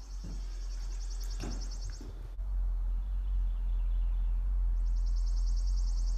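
Low rumble of a handheld camera's microphone being carried through an empty room, growing louder about two seconds in, with a few faint knocks. A high, rapid trill sounds twice, once lasting about two seconds at the start and again near the end.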